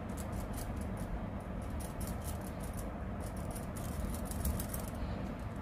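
Makeup blender sponge dabbed against the face to blend in the base, a run of many faint, irregular soft pats over a low steady background noise.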